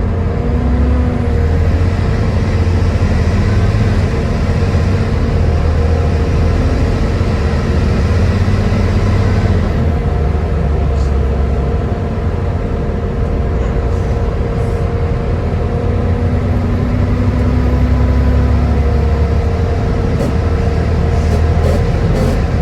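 Volvo B7TL double-decker bus heard on board while under way, its engine running with a low rumble and a steady whine (the 'hoovering' sound). The upper hiss eases off about ten seconds in, and a few rattling clicks come near the end.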